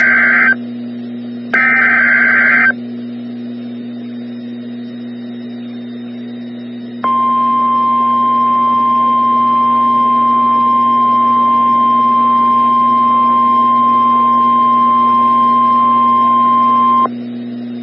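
NOAA Weather Radio EAS alert: the SAME digital header ends in two short bursts of buzzing data screech near the start, then about seven seconds in comes the steady single-pitch 1050 Hz warning alarm tone, held for ten seconds. This marks a warning-level alert, here a tornado warning. A constant low hum runs underneath.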